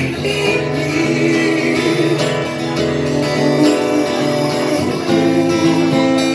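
Acoustic guitar played live, chords strummed and left to ring in a steady pattern.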